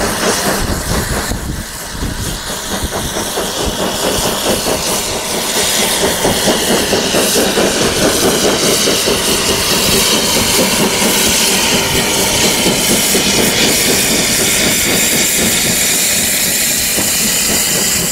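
Railway rotary snowplow working through deep snow: a loud, steady rushing hiss of thrown snow and steam with machinery running underneath, dipping briefly near the start and then building and holding.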